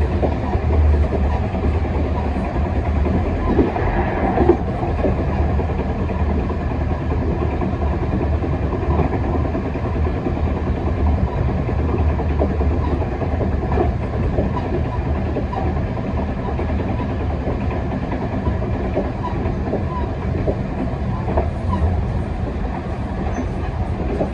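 Chu-Kuang express passenger train running along the line, heard from its rear carriage: a steady rumble of wheels on the rails with a low hum and scattered faint clicks.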